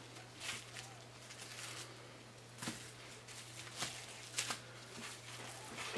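Faint, scattered rustles and soft taps of gloved hands handling a raw pork tenderloin on a plastic-wrapped cutting board, over a steady low hum.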